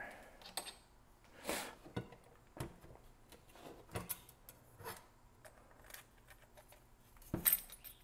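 Scattered metal clinks and light rattles of loose bicycle cassette parts (cogs, spacers and lock ring) being handled and set down on a wooden workbench, with a louder double clink near the end.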